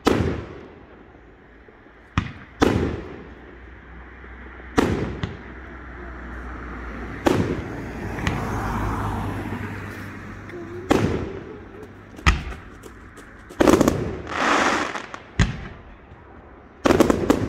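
Fireworks display: aerial shells bursting with about ten sharp bangs at irregular intervals, several followed by a crackling hiss, coming thicker near the end.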